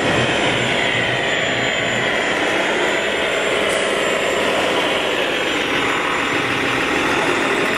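Steady mechanical whirring hum, with faint slow rises and falls in pitch, from radio-controlled model vehicles' electric motors running.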